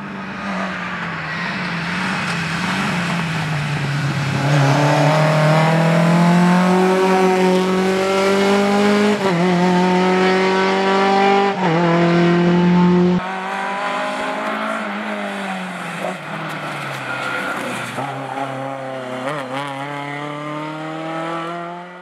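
Lada 2107 rally car's engine at full throttle, climbing in pitch through the gears with two quick upshifts about nine and eleven and a half seconds in, loudest as the car passes close. About halfway through the sound cuts abruptly to a quieter, wavering engine note from the car further off, which rises again near the end.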